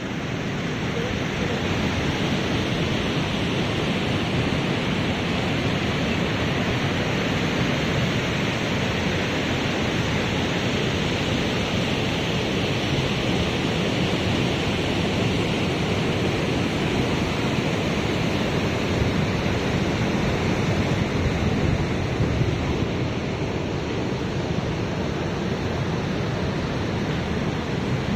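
Steady rush of river water tumbling over a low weir, a constant even roar of white water.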